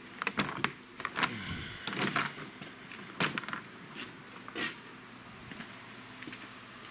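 A scattered series of knocks and clicks over the first five seconds, like parts and panels being handled, then only a steady faint background.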